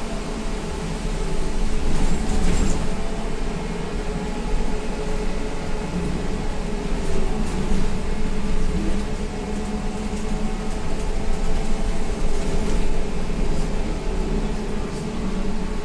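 Cabin noise inside a SVARZ-MAZ-6275 trolleybus: the steady hum of the electric drive over road noise, with a few light clicks and rattles.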